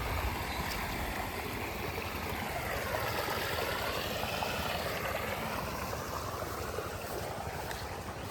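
Steady rush of running water, with a hollow tone that sweeps down and back up in the middle.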